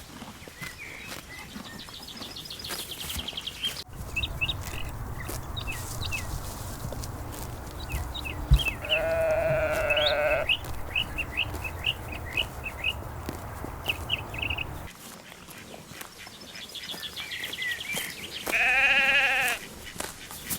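Lambs bleating: two wavering, quavering bleats about ten seconds apart, each lasting a second or so, with small birds chirping throughout.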